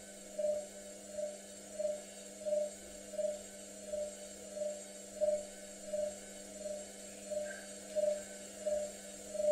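Hotpoint Ariston Aqualtis front-loading washing machine running with its drum turning slowly: a steady hum with a short whine that pulses about one and a half times a second. This is the run-up to its second spin at 600 rpm on the wool programme.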